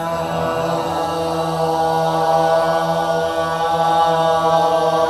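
Voices holding one long, steady sung note on a single pitch: a breath-supported sustained-tone exercise from Korean traditional (gugak) vocal training, meant to make the body resonate.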